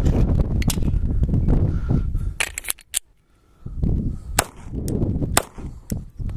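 Polymer80 Glock-style pistol firing a string of shots at irregular intervals, with a quick run of about three shots about halfway through. A low rumble of wind buffeting the microphone lies under them.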